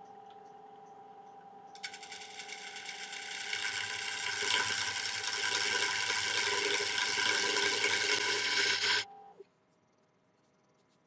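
Wood lathe running with a steady motor hum while a gouge cuts into a spinning dry yew bowl. The cut builds over a couple of seconds, holds steady, and stops suddenly along with the motor hum near the end.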